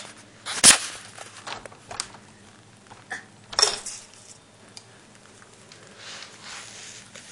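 Sharp knocks and clatter of a house window being shut. The loudest knock comes about a second in and another about three and a half seconds in, with a few lighter clicks between them.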